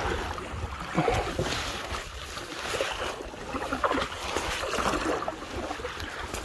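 Wooden canoe paddles pulling through calm water, with a few soft splashes and swishes as the blades dip and stroke. A low rumble of wind on the microphone runs underneath.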